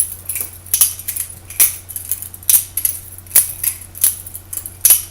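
Butterfly knife (balisong) being flipped: its handles swing round and clack shut against each other in a steady rhythm of sharp metallic clicks, about two or three a second.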